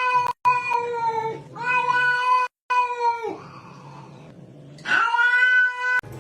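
A cat yowling: three long, drawn-out caterwauls held at a steady pitch, the last one starting about five seconds in.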